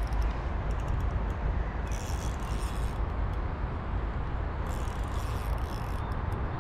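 Steady rushing of river current, with two brief high hissing bursts about two and five seconds in.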